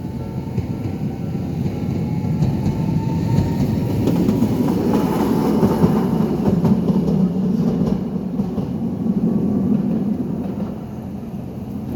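Toden Arakawa Line tram passing over the level crossing. The running noise builds to a peak about halfway through and then fades, and a faint motor whine rises in pitch over the first few seconds.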